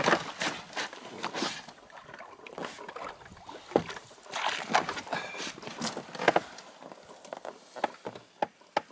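Irregular knocks and clatter of a plastic box being handled in an inflatable boat, with water splashing and sloshing as a freshly caught zander is put into its water-filled keep box.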